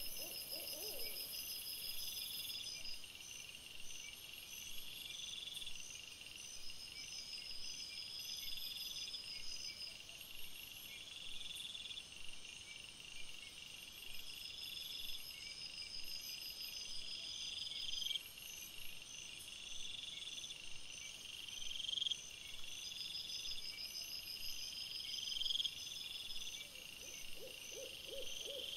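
Night-time animal calls: a short high note repeated about every two seconds, with rapid high-pitched trills coming and going over it.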